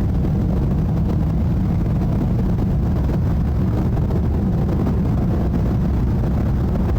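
Jet airliner climbing out overhead: a steady, loud low rumble of jet engine noise.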